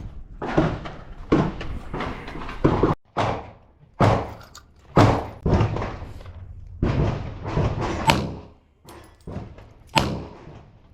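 .40-caliber handgun fired shot by shot in a steady string, the shots roughly one to two seconds apart, each with a short echo tail.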